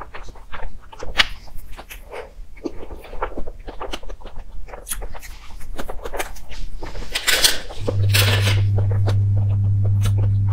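Close-miked mouth sounds of eating soft crepe-wrapped cakes: wet chewing, smacking and small clicks. About eight seconds in, a steady low hum comes in and becomes the loudest sound.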